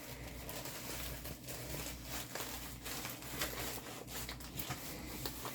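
Soft rustling and scattered small clicks of a diamond painting kit's packaging being handled, over a steady low hum.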